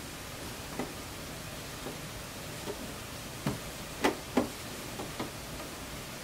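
Scattered light knocks and clicks over a faint steady hiss: fabric pieces and small tools being handled at a sewing machine. The loudest knocks come in a cluster about three and a half to four and a half seconds in.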